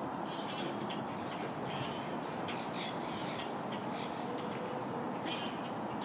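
Backyard birds calling: an irregular string of short calls, a couple each second, over a steady background noise.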